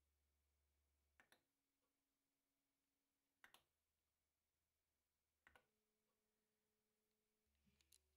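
Near silence, with three faint sharp clicks about two seconds apart: a small Zigbee wireless push button being pressed to toggle a light.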